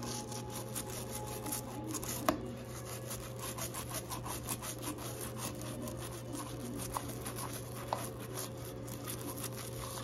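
Toothbrush bristles scrubbing quickly back and forth around a plastic light-switch toggle and wall plate, a fast rasping rub, with a few sharp clicks as the brush knocks the switch.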